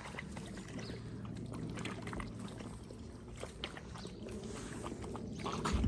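Dalmatians drinking and wading at a pond's edge: light splashing and lapping of water, with scattered small clicks.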